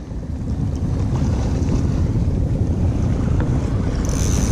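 Wind buffeting the microphone over choppy sea, a steady low rumble with waves washing underneath. A brief high-pitched whine comes in near the end.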